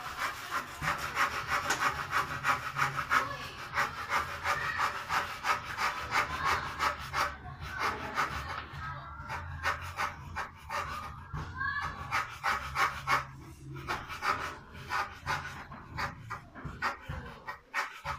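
Rapid, repeated scraping and knocking as termite-eaten wooden ceiling framing is pried and scraped off by hand, with short strokes coming several a second, sparser in the second half.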